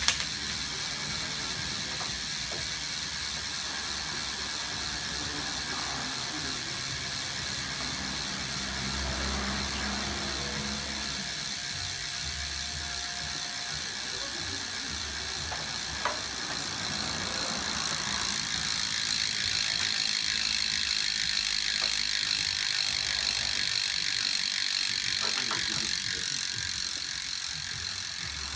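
PowerTap G3 rear hub's freehub ratchet buzzing as the Envy carbon rear wheel spins freely, a continuous fast clicking. It grows louder a little past halfway, then eases off near the end.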